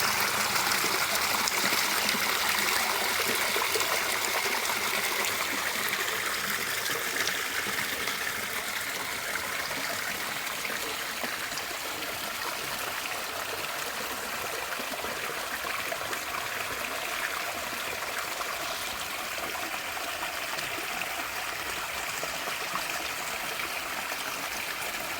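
Clear river water running and burbling over its bed, a steady rushing flow that eases slightly in the first half and then holds even.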